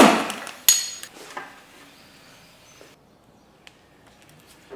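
A brief burst from an impact wrench on an engine pulley bolt at the very start, dying away fast. About 0.7 s in comes a sharp metallic clink with a ring. Then quieter metal-on-metal handling and a small click.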